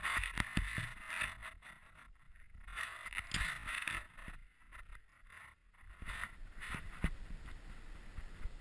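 Skis sliding through snow, heard from a helmet-mounted camera: a hiss that swells and fades in surges, with scattered knocks and a low rumble.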